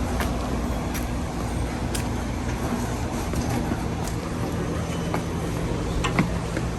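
Steady low hum of vehicle noise, with a few faint clicks scattered through it.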